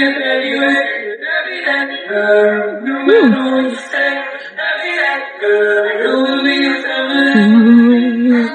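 Music with singing: a vocal line of held, pitched notes that changes every half second or so.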